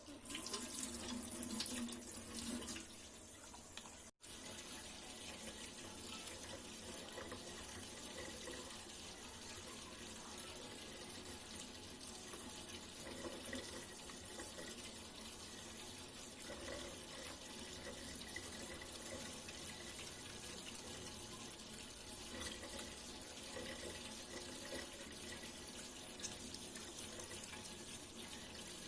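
Water running steadily from a tap into a sink, with a brief cut-out about four seconds in.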